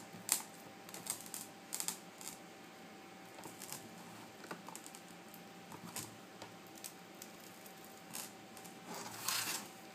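Light, scattered clicks and taps as a pry tool works along the glass seam of an iPad 2, with a short scraping hiss near the end. A faint steady tone runs underneath.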